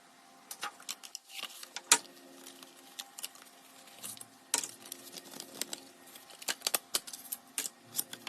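Packaging of a watch box being handled: irregular sharp clicks, taps and crinkles of cardboard and plastic, the loudest snap about two seconds in, over a faint steady hum.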